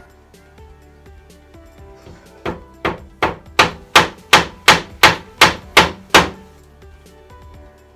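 Claw hammer striking nails into a plywood panel: a quick run of about eleven strikes, roughly three a second, starting about two and a half seconds in and getting louder as it goes.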